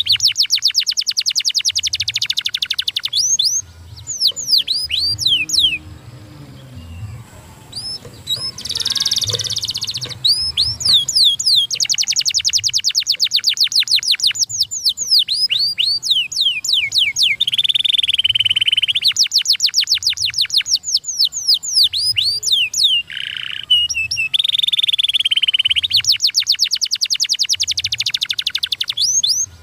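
Domestic canary singing a fast song of rapid trills, each note repeated many times a second, mixed with quick falling whistles. There is a quieter lull a few seconds in.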